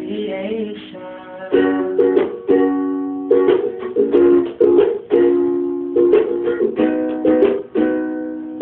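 Ukulele strummed in chords, a sharp strum every half second to a second with each chord ringing on between strokes.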